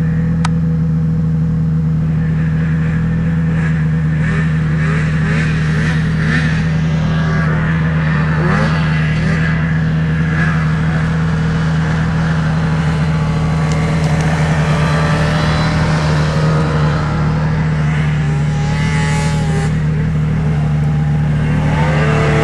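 A nearby snowmobile engine runs at a steady idle throughout. Over it, the engine of a second snowmobile riding through deep powder rises and falls in pitch as the throttle works, and it revs up in rising sweeps near the end as that sled comes close.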